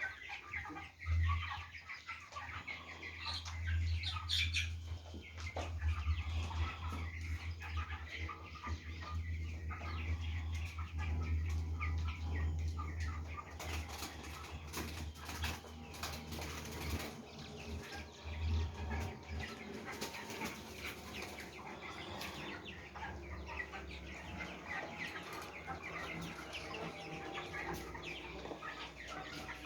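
A flock of young farm chickens chirping and clucking, with wing flapping and scuffling. A low steady hum runs under them until about two-thirds of the way through, then drops away.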